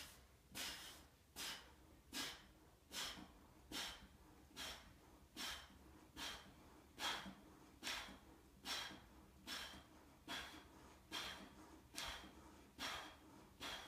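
A man breathing out hard in short, forceful puffs, a little faster than one a second, in an even rhythm, one breath with each push-up rep.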